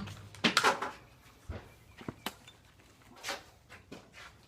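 The reverberating tail of a gunshot fades out at the start, followed by scattered faint clicks and light knocks.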